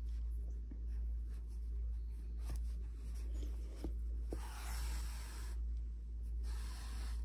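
Black acrylic yarn being drawn through a plush-yarn crochet head with a yarn needle: soft rubbing and rustling, with a longer pull about four and a half seconds in and a few faint ticks, over a steady low hum.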